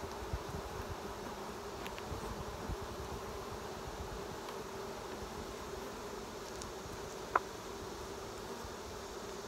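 Dense mass of honeybees buzzing around an open, crowded hive: a steady, even hum. A single sharp click sounds about seven seconds in.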